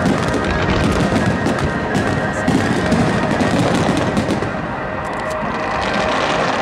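Aerial fireworks shells bursting in quick succession, with music playing throughout. The bursts ease off briefly about four and a half seconds in.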